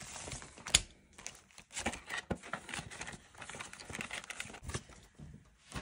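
Paper banknotes and a clear plastic cash envelope rustling and crinkling as a stack of bills is handled and tucked in. A sharp click comes about three-quarters of a second in.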